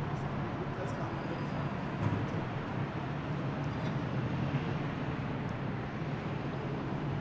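Steady low rumble of motor vehicles, with a few faint high ticks.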